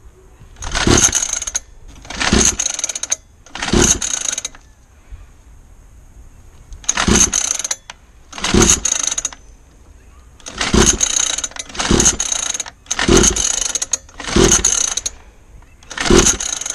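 Recoil pull starter of a 49cc two-stroke mini dirt bike being yanked about ten times, each pull a short whir of the cord and the engine cranking over, with a pause of a couple of seconds after the third. The engine never catches, which the owner puts down to the spark plug.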